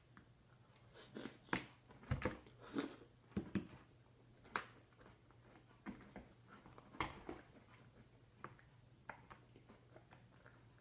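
Chewing and mouth smacks from eating a mushy mix of cereal, crackers, banana and ice cream, with a few sharp clicks scattered through, most of them in the first four seconds.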